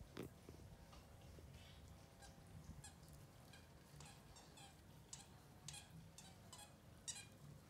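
Faint bird calls: series of short, repeated calls, a few a second, with a sharper call near the end, over a soft click at the very start.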